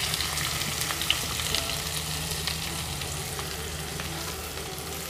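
Freshly added sliced onions sizzling in hot sesame oil in a kadai: a steady frying hiss with a few small crackles.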